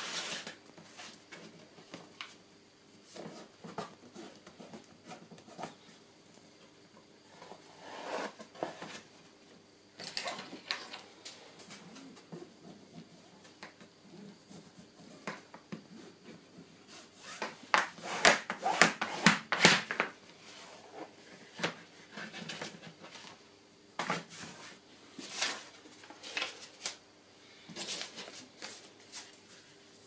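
Paper and greyboard being handled, slid, taped and pressed on a plastic cutting mat: scattered rustles, taps and scrapes. About two-thirds of the way through comes a denser run of sharp scraping clicks as a craft knife cuts along the taped board.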